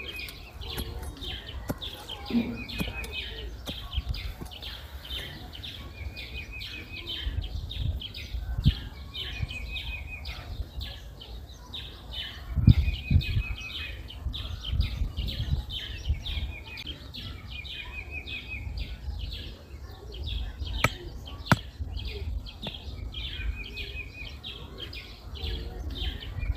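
Wild birds singing steadily, one repeating a short trill about every three seconds, over scattered low thuds and a few sharp knocks, the heaviest thud about halfway through.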